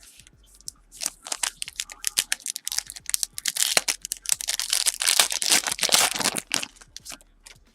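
A foil trading-card pack wrapper being torn open and crinkled by hand, a dense crackling rustle that builds after about a second and dies away near the end.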